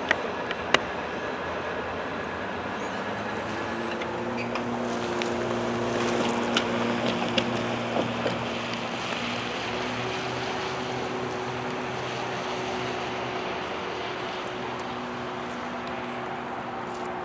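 Norfolk Southern double-stack intermodal freight cars rolling past on the rails: a steady rumble and hiss with a few sharp clicks and clanks, the loudest about a second in, and a low steady hum joining about four seconds in.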